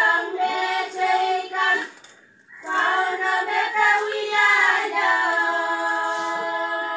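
A group of women singing together unaccompanied, in short phrased notes. The singing breaks off briefly about two seconds in, then resumes and settles into a long held note.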